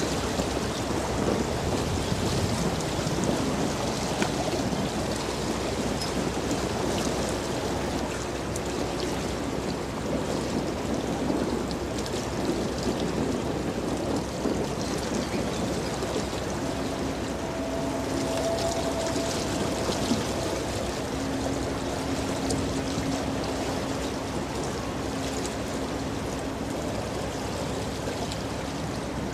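A container ship's bow wave rushing and splashing along the hull as the ship passes close. A faint steady hum joins about halfway through.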